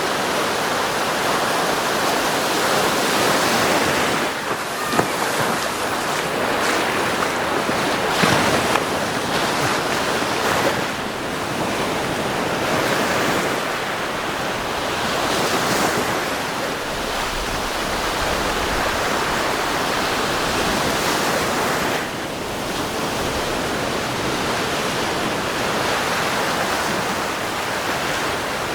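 Surf washing onto a sandy beach: a steady rush of breaking waves that swells and eases every few seconds, with some wind on the microphone. A couple of short knocks stand out about a third of the way in.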